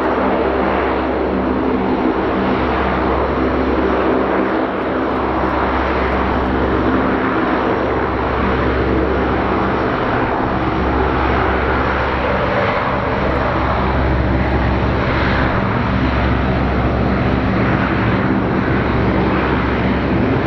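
C-130H Hercules taxiing on its four Allison T56 turboprop engines: a loud, steady propeller drone with several held tones over a low rumble.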